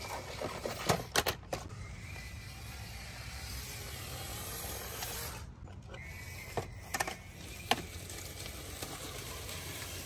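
Mini RC crawler driving over a corrugated plastic downspout extension and dry leaves: faint whine of its small electric motor and gears, rustling leaves, and a few sharp plastic clicks and knocks about a second in and again around seven seconds in.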